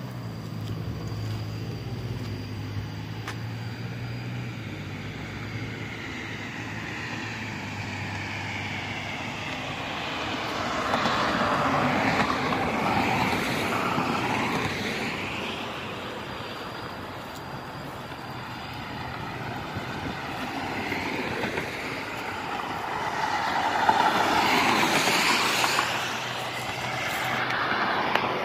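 Highway traffic going by on a concrete road: tyre and engine noise that swells and fades as vehicles pass, loudest about twelve seconds in and again about twenty-five seconds in.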